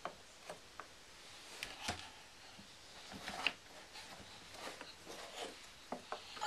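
Wooden puzzle pieces tapping and clicking against a wooden peg-puzzle board: a scattering of faint, separate knocks as the pieces are handled and fitted.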